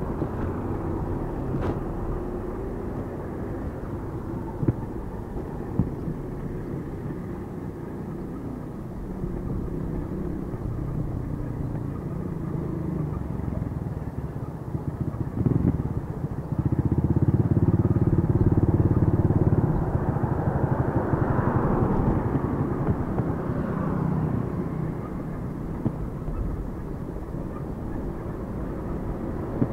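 Road traffic on a town street heard from a moving bicycle: a steady low rumble of passing vehicles, with one motor vehicle going by close and loud for about three seconds just past the middle.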